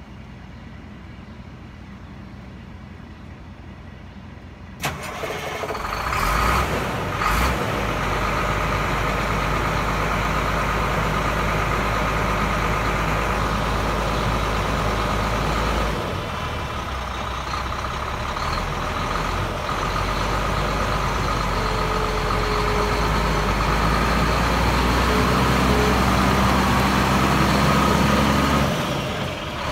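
Ford AeroMax L-9000 truck tractor's diesel engine starting about five seconds in, with two short surges just after it catches. It then runs steadily at idle.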